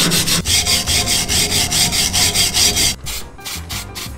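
Rust being scrubbed by hand off the steel rear axle housing of a Datsun 620 pickup, in fast back-and-forth strokes of about eight a second. The strokes stop about three seconds in and go on slower and fainter.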